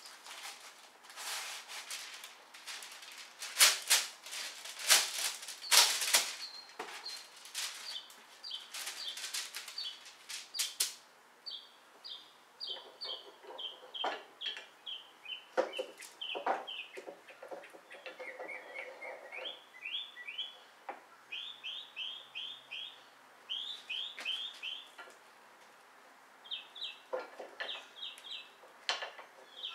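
Sharp knocks and clatter from work on glued wooden boards held in long pipe clamps, strongest through the first ten seconds or so. From about four seconds in, a small bird chirps in quick runs of short, repeated high notes.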